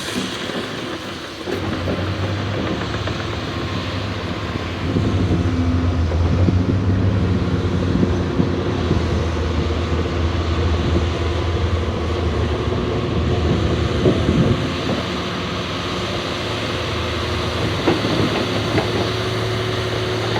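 John Deere 850J crawler bulldozer's diesel engine running under load, getting louder about a second and a half in and again around five seconds in, with occasional clanks from the machine.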